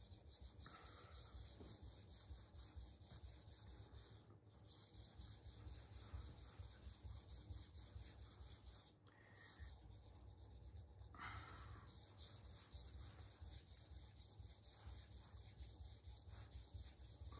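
Santoku kitchen knife blade scraped dry across a 100-micron diamond resin sharpening stone, with no water on it. The faint scraping comes in quick, regular strokes and pauses briefly twice. This is the coarse stone thinning the blade and cleaning off rust.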